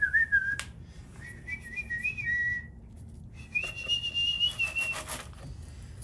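A person whistling three held notes, each a bit higher than the one before, with a few light clicks underneath.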